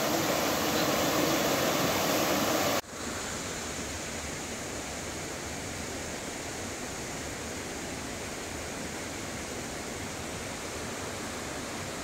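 Rushing water, a steady even roar. About three seconds in it cuts abruptly to a quieter take of the same steady water sound.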